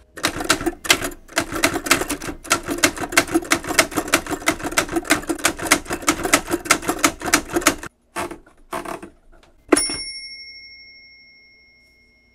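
Smith-Corona manual typewriter typing: a fast run of key and typebar clacks, then a couple of separate clacks. Near the end comes one sharp strike with a bright ring that fades away over about two seconds.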